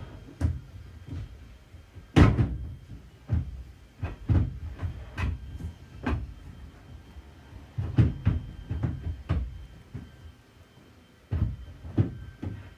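Toyota Hilux tail light housing knocking and clattering against the body as it is jiggled loose from its retaining pins: a string of irregular knocks, the loudest about two seconds in.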